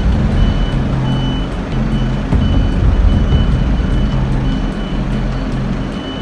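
Electronic warning beeper sounding about twice a second over a loud, steady low rumble of heavy machinery.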